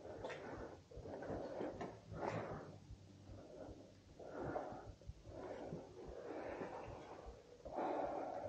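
A person breathing heavily close to the microphone, about one breath a second, with faint clicks and knocks underneath.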